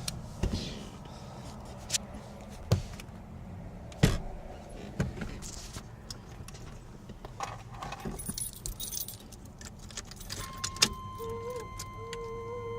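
Keys jangling, with a string of sharp clicks from handling the ignition of a 1993 Chevy S10. About ten seconds in, a steady high-pitched tone starts and keeps sounding: the truck's odd electrical noise, which the owner suspects is a short because everything was off.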